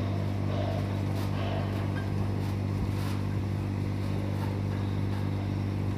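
An engine running steadily at constant speed: a low, even drone with a strong pitched hum.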